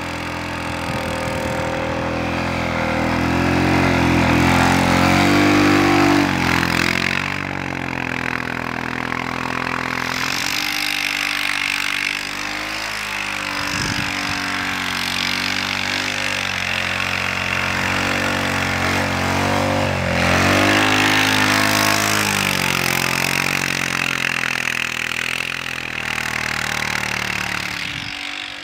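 Honda Rubicon 520's single-cylinder engine working hard as the tracked ATV ploughs through deep snow, its pitch rising and falling with the throttle. It is loudest about five seconds in and again about twenty seconds in, with a brief low knock around midway.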